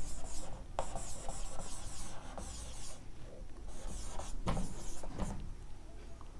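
Marker pen writing on a whiteboard: a run of scratchy, rubbing strokes as a word is written, a short pause, then more strokes, with a couple of sharp taps of the pen tip on the board.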